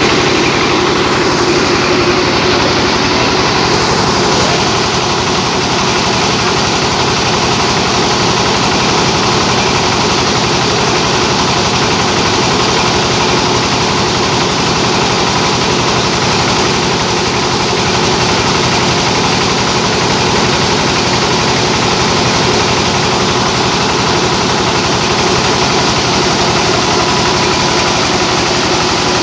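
Rice milling machine driven by a 24 hp engine, running steadily as it mills paddy into rice: a loud, continuous mechanical din with no change in pace.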